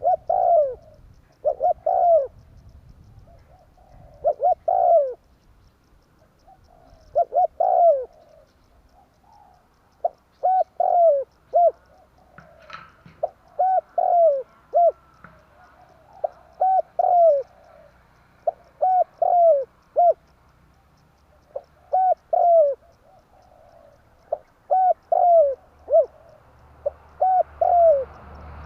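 Spotted dove cooing: short phrases of two or three falling coo notes, repeated every couple of seconds.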